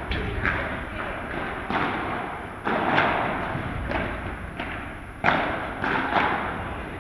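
Padel balls being struck with solid paddles and bouncing: sharp thuds at irregular intervals, about nine in all, each with a short echo off a large hall.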